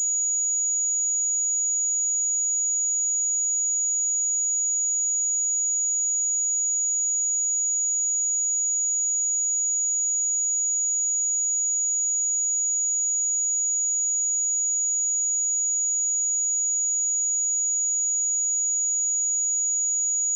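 A steady, unbroken 6813 Hz sine-wave test tone: a single high-pitched pure tone.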